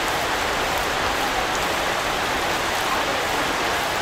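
Heavy rain pouring steadily onto trees and leafy plants.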